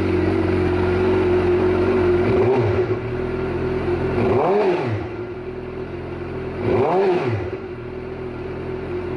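Suzuki GSX-R inline-four sportbike engine idling through an M4 GP slip-on exhaust, blipped so the pitch rises and falls back two or three times, most strongly about four and a half and seven seconds in.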